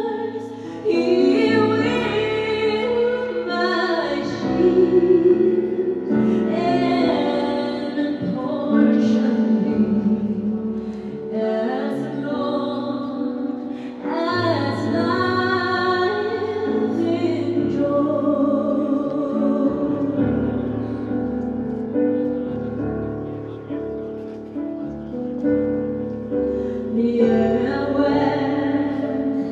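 A woman singing a song over instrumental accompaniment, amplified through microphones.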